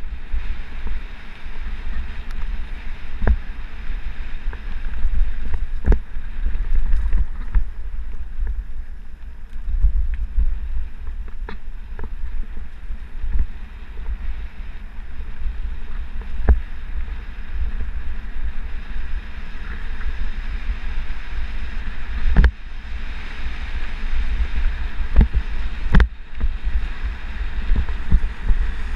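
Wind rumbling on the microphone of a bike-mounted camera at riding speed, broken now and then by sharp knocks and rattles as a mountain bike jolts over bumps in the dirt trail.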